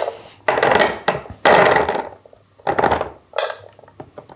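Soaked cashews being tipped and scooped into a bowl on a kitchen scale: four short clattering, rustling pours, the loudest about one and a half seconds in.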